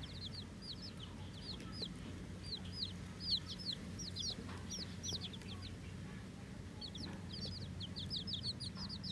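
Newly hatched chicks peeping in a group: many short, high cheeps, several a second, with a brief lull about six seconds in. A steady low hum runs underneath.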